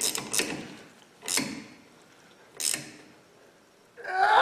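Ratchet wrench tightening a brake hose banjo bolt on a caliper, giving a few separate clicks spaced over a second apart. Near the end a loud sound that slides in pitch starts.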